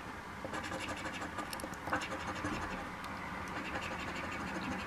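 A coin scratching the coating off a paper instant lottery ticket in a steady run of quick, repeated strokes, starting about half a second in.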